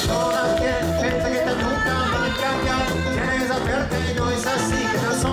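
Live band playing upbeat, danceable music on sousaphone, saxophones, drum kit and electric guitar, with a singer.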